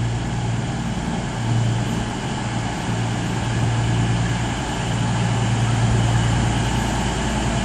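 CrossCountry Class 221 Super Voyager diesel-electric unit pulling slowly into the platform, its underfloor diesel engines giving a steady low drone that grows a little louder as the train draws near.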